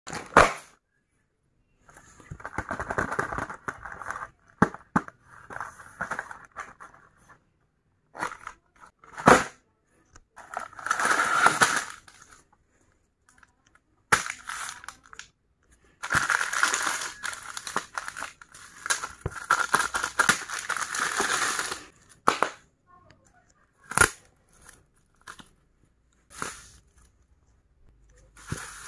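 Foil and plastic snack wrappers crinkling and tearing as Choki Choki packets are handled and torn open by hand. The crinkling comes in bursts of a few seconds with short pauses, with several sharp snaps between them.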